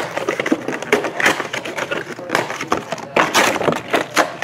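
Plastic wrapping being crinkled and handled: a dense, irregular run of sharp crackles.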